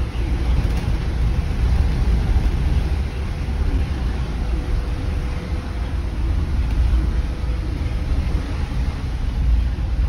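School bus engine and road noise heard from inside the cabin while driving: a steady low rumble with a rushing hiss above it.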